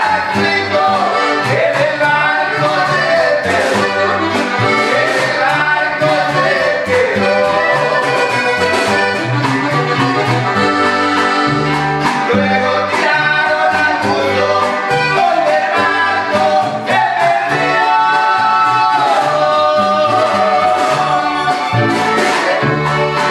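Live regional Mexican band music: a button accordion plays the lead over a plucked upright bass line, strummed guitars and a snare drum with cymbal.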